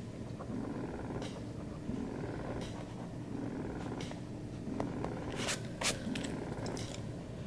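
Domestic cat purring close to the microphone: a low rumble that swells and fades with each breath. A few sharp clicks cut through it, the loudest a pair about five and a half seconds in.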